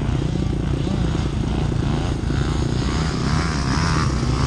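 Dirt bike engine idling steadily close by. During the second half a second dirt bike can be heard revving and changing pitch farther off.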